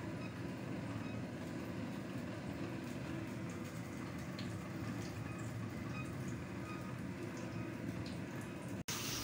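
Steady low background hum with a few faint, scattered ticks. Music cuts in just before the end.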